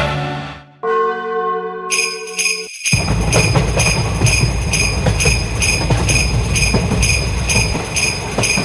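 Japanese railroad-crossing alarm bell clanging, a bright strike repeating a little over twice a second, starting about two seconds in, with a loud low rumbling noise underneath from about three seconds in. Before it, a quick falling electronic sweep and a held electronic chord.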